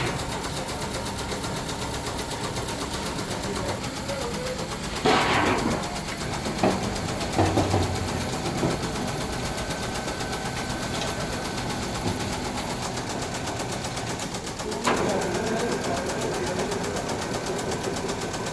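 Steady hum of factory metalworking machinery, with a few loud knocks: a cluster around the middle and one more a few seconds before the end.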